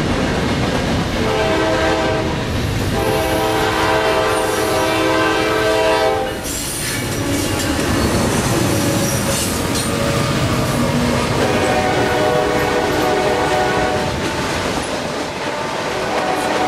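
Norfolk Southern freight locomotive sounding its horn as it passes the crossing, the horn breaking off and dropping in pitch as the locomotive goes by about six seconds in. The freight cars then rumble and clatter past, and the horn sounds again more faintly near the middle.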